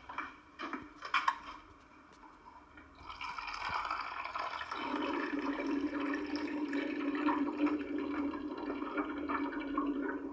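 Office water cooler dispensing water into a cup, the big bottle glugging as air bubbles rise through it. A few light clicks come first; the water starts about three seconds in, grows fuller about five seconds in and runs steadily until it stops near the end.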